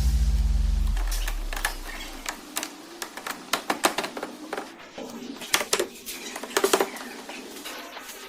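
Background music dies away in the first two seconds, then a run of irregular light clicks and taps follows.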